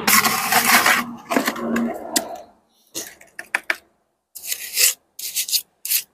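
Steel trowel scraping and cutting lime mortar on a hand-held hawk: a long rough scrape for the first couple of seconds, then several short, sharp strokes.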